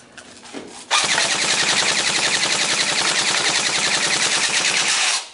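Lancer Tactical M4 airsoft electric gun (AEG) firing full-auto on an 11.1 V LiPo battery: one long, rapid burst that starts about a second in and cuts off abruptly near the end. The owner says it didn't sound good, and traces the trouble to the motor height screw having backed off.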